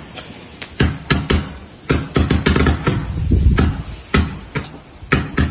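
Fireworks going off: an irregular run of sharp bangs and crackles, several a second, as shots launch and burst overhead.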